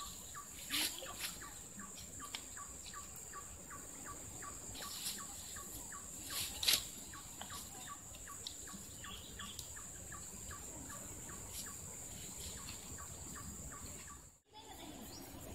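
Tropical riverside ambience: a steady high-pitched insect drone with a bird calling in short, evenly repeated notes, about three a second, and a couple of brief clicks. The sound cuts out for a moment near the end.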